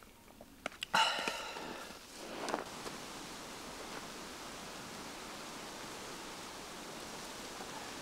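Steady rain falling, a constant even hiss. About a second in there is a short, loud rustling clatter with a few clicks, and a smaller rustle comes shortly after.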